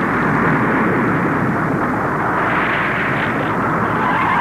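Steady, loud rumbling roar of a film explosion-and-fire sound effect, with no distinct blasts.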